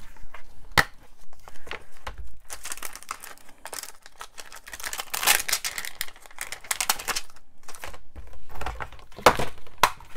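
A clear plastic stamp case being handled and a clear stamp peeled off its plastic carrier sheet: a string of light clicks and taps, with a few seconds of crinkly plastic rustling in the middle.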